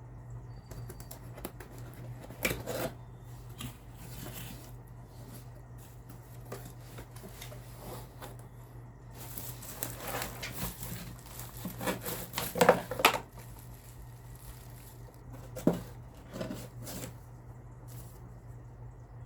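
Packaging being handled and opened by hand: intermittent rustling, crinkling and tearing with a few sharper knocks, the loudest cluster about twelve to thirteen seconds in, over a steady low electrical hum.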